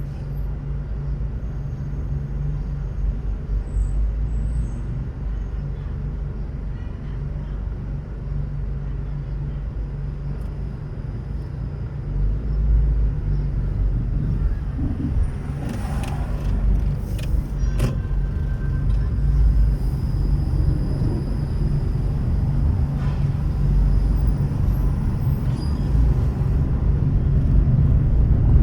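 Steady low rumble of a car driving through city traffic, engine and tyre noise, with a few short sharp knocks about sixteen to eighteen seconds in.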